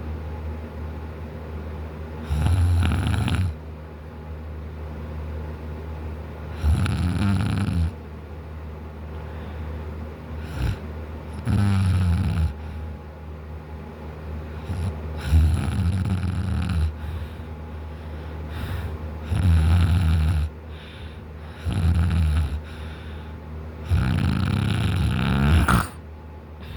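A man snoring loudly in deep sleep: about seven heavy snores, each a second or so long, coming every few seconds.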